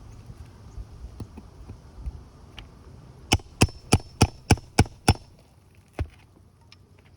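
Hammer striking a nail puller to drive its claw under roofing nails in the shingles: seven quick sharp blows about three a second, starting about three seconds in, then one more blow a second later.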